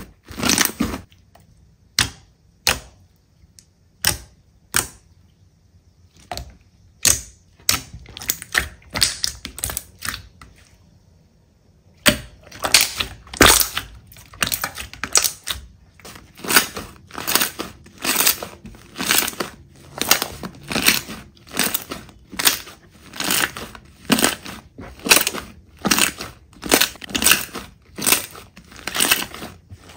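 Slime being squeezed and pressed by hand, giving off a run of sharp pops and crackles. They come scattered for the first dozen seconds or so, then thick and fast to the end.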